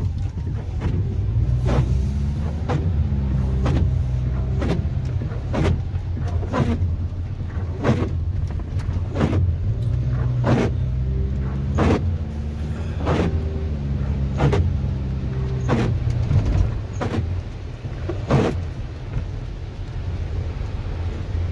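Car engine and tyres on a wet road heard from inside the cabin, the engine pitch rising and falling as the car speeds up and eases off. Windscreen wipers sweep over and over at a steady pace, about once a second.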